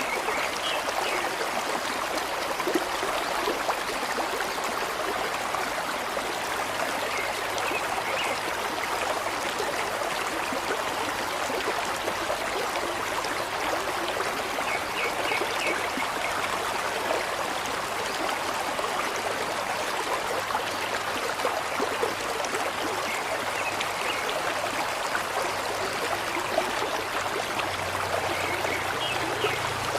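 Steady flowing water, like a stream running over rocks, with no change in level.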